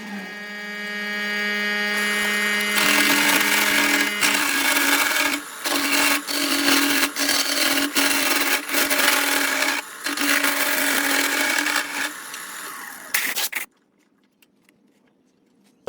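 Electric power tool motor whining steadily, its pitch stepping up about three seconds in, with rough grinding noise and brief dips as it works the wood. It stops near the end.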